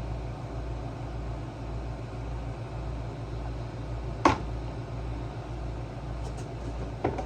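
Tools or parts knocking during generator disassembly: one sharp clack about four seconds in and a softer double knock near the end, over a steady low hum.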